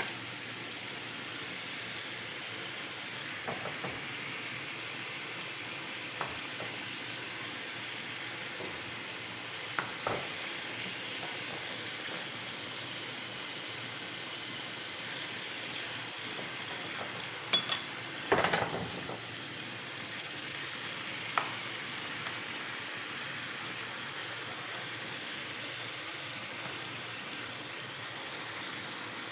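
Chicken curry sizzling steadily in a cooking pot, with a few sharp knocks of a utensil against the pot, the loudest about 18 seconds in.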